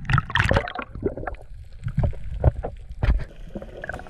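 Sea water splashing and sloshing around a camera at the surface, in irregular loud splashes with low gurgling between them.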